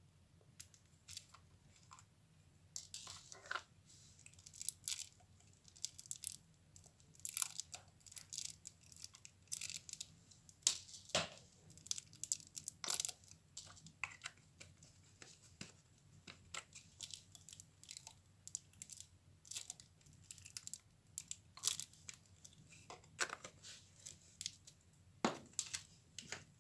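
Slime being handled by hand, giving irregular crackles and pops.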